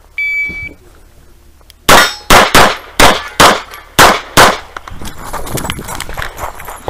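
Electronic shot-timer start beep, a steady tone lasting about half a second. About two seconds later come seven handgun shots in about two and a half seconds. After that, quieter scuffing and rustling follow as the shooter moves across gravel.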